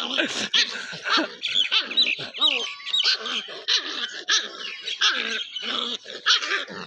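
A puppy barking and yipping repeatedly, short barks in quick succession.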